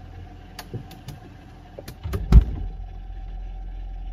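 Handling noise: a few light clicks and knocks, then one heavy thump a little over two seconds in, over a steady low hum.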